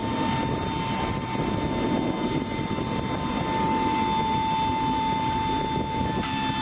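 Jet engines of a C-5M Galaxy transport running: a steady high whine over a low rumble.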